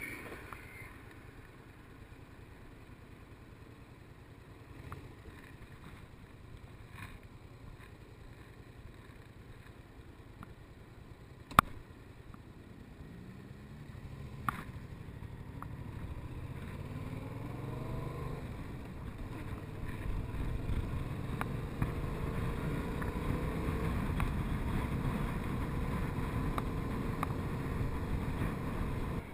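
Yamaha MT-07 parallel-twin engine ticking over at a standstill, with a sharp click about twelve seconds in. The engine then revs up in several rising sweeps as the bike pulls away and settles into a steady, louder run mixed with wind noise.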